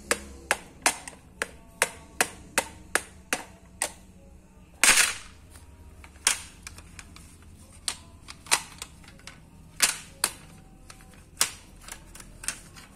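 Gloved fingers tapping a hard plastic toy case: sharp taps about three a second for the first four seconds, a longer, louder clatter about five seconds in as the case is handled, then scattered taps and clicks as it is opened.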